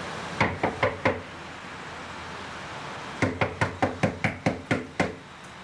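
Knuckles knocking on a door: four quick knocks, then after a pause of about two seconds a longer, insistent run of about nine knocks.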